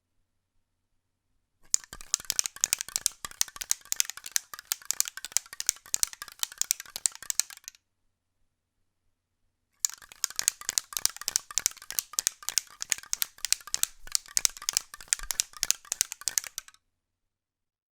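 Spray paint can being shaken, the mixing ball rattling against the metal can in quick clicks. Two spells of shaking, each about six seconds long, with a pause of about two seconds between them.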